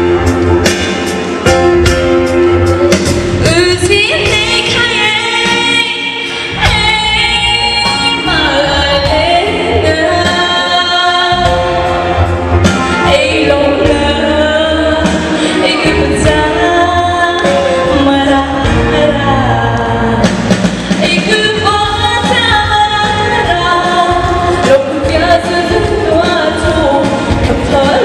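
A woman singing a song into a microphone over instrumental accompaniment, her amplified voice carrying the melody throughout.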